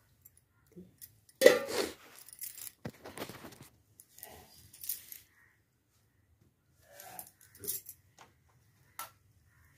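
Metal kitchen utensils clinking and clattering as they are handled and set down, in scattered knocks with a louder clatter about one and a half seconds in.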